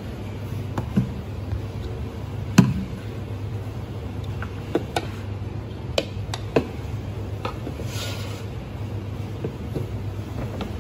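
Cooked rice being scooped out of an electric rice cooker: a plastic rice paddle knocks and taps now and then against the cooker's metal inner pot and the bowl. A steady low hum runs underneath.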